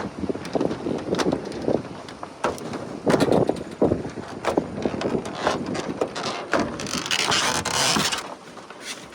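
Irregular wind gusts buffeting the microphone, mixed with scattered knocks, and a brief burst of brighter hiss about seven seconds in.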